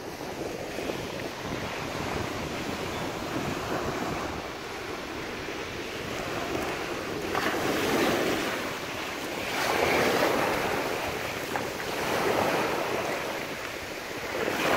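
Small waves breaking and washing up over shingle at the water's edge, swelling and falling back every two seconds or so in the second half, with wind buffeting the microphone.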